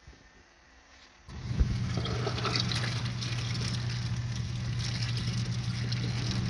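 Costway portable washing machine starting up again about a second in after a short pause, its motor humming steadily while the tub churns rinse water. A single knock comes as it starts.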